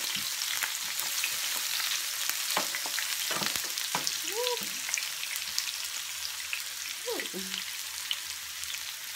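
Sliced onions sizzling and crackling in hot oil in a nonstick grill pan, a steady hiss, while a spatula stirs them with a few light scrapes and clicks against the pan.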